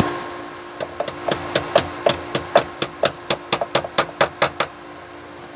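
A hammer tapping the car door's check-strap pin back into place, now fitted with a plastic sleeve cut from a PET bottle: about twenty quick metal knocks, some harder than others.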